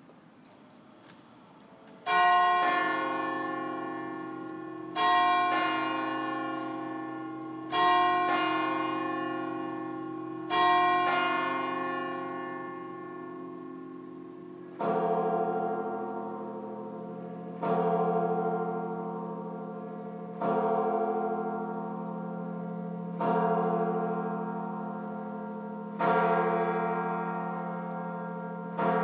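Church bells cast by Rüetschi of Aarau in 1904, ringing after a short near-silence. One bell strikes four times, evenly about three seconds apart, each stroke left to hum away. Then a deeper, larger bell takes over at the same pace, striking six times.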